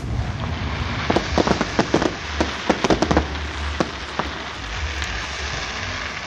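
Aerial fireworks bursting: a quick run of sharp crackling pops from the shells' stars, bunched between about one and four seconds in, over a steady hiss.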